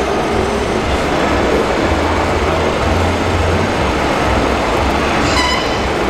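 Radio-controlled hydraulic model excavator and other RC construction machines working: a steady mechanical hum and hiss, with the low hum swelling for a couple of seconds in the middle. A short high squeal sounds near the end.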